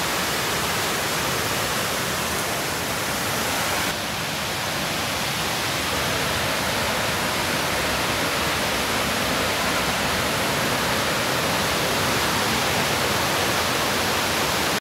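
Large waterfall cascading down rocks: a steady, even rush of falling water.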